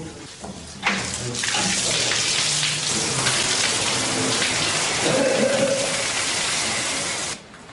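Heavy pouring water, a dense steady hiss like a downpour, beginning with a sharp knock about a second in and cutting off suddenly near the end.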